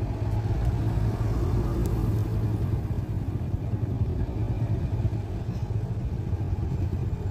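Steady low rumble of a road vehicle underway: engine and road noise, with no sharp events.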